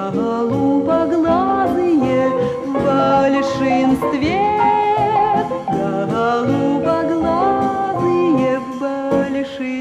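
Music: a lyrical pop song, a woman's voice with instrumental accompaniment, playing steadily.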